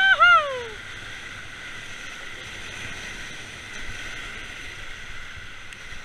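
River rapids rushing steadily around an inflatable raft. A rafter's high whoop falls away and ends within the first second.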